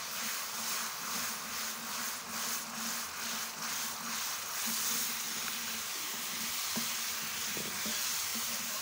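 Hot sugar syrup sizzling and bubbling in a kadhai as it is stirred into roasted gram flour with a wooden spoon for besan halwa. Quick, regular stirring strokes sound over the first half, then a steadier sizzle.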